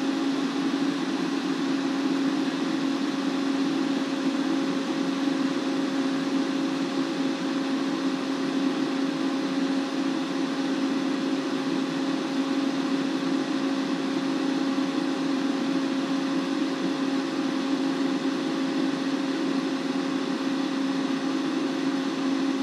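Auto Meter carbon-pile battery load tester running under a continuous draw of about 110 amps during a 1C load test. Its cooling fan makes a steady whir with a constant low hum.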